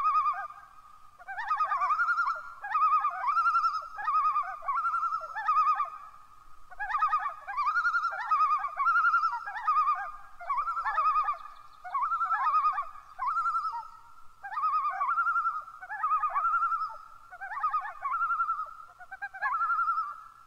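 Common loon calling: a long run of quavering, warbling phrases, each under a second, repeated one after another with brief gaps.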